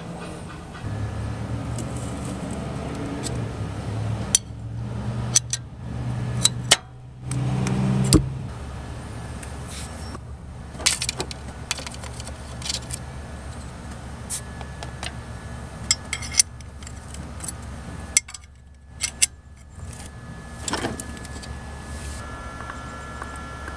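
Scattered metallic clicks and clinks of hands and tools working around an engine's timing belt, sprockets and tensioner, with a few sharper knocks, over a steady low hum.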